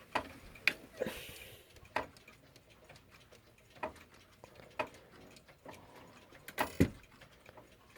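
Mechanical clock ticking: sharp clicks at uneven intervals, some louder than others.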